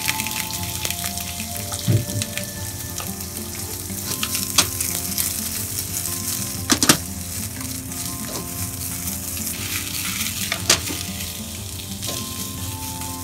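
Eggplant chunks sizzling in sesame oil in a non-stick frying pan over medium heat, stirred and tossed with a spatula. A few sharp knocks of the spatula against the pan stand out over the steady sizzle.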